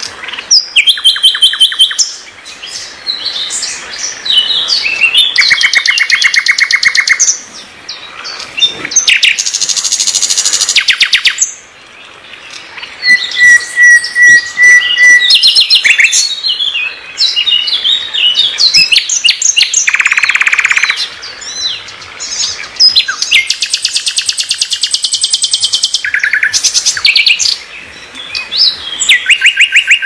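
Common nightingale singing: varied phrases of fast repeated notes and trills at many pitches, separated by short pauses, with a run of clear whistled notes about halfway through.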